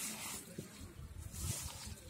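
Wet squelching and rustling of raw pork pieces being kneaded by hand with chilli powder and spices in a metal pan, in irregular soft squishes.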